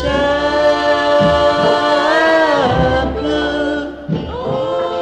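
Music of voices singing long held notes, the pitch dropping once about halfway through, with a few low drum beats underneath.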